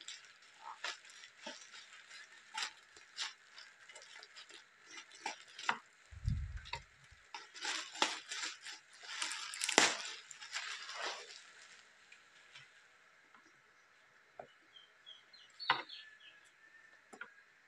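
Black plastic courier bag crinkling and rustling in short, scattered crackles as it is cut and torn open by hand, with a single low thump about six seconds in.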